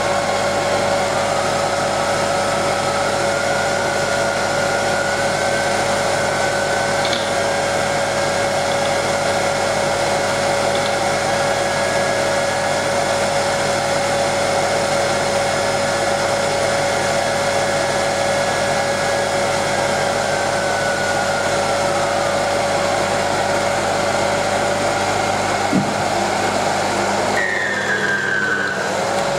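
Induction motor spinning an iron disc with neodymium magnets that magnetically drags an aluminium disc on a DC generator: a steady whirring hum with a faint whistle that rises in pitch about a second in and sinks again about twenty seconds in. Near the end the low hum drops away and a tone glides down in pitch.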